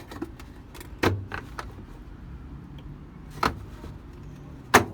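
LG washing machine: a steady low hum with irregular sharp clicks and clunks, a cluster of them in the first second and a half, then two louder single knocks about halfway and near the end.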